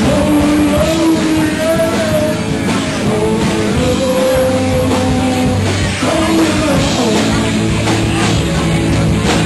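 Live rock band playing loud, with a singer over the band, recorded close to the stage.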